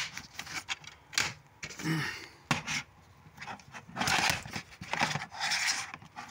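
Plastic DVD cases being handled: sharp clicks and snaps in the first half, then a few stretches of plastic rubbing and scraping.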